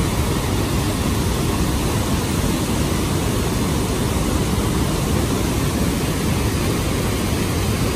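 Victoria Falls on the Zambezi River pouring over the rock edge close by: a loud, steady, unbroken rush of falling water.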